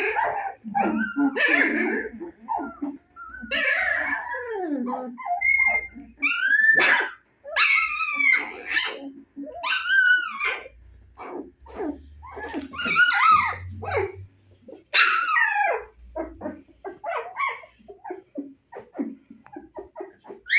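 Very young husky puppies, about 25 days old, yipping and whining in a long string of short high calls, several rising and falling, with a few little barks; the calls come shorter and fainter near the end.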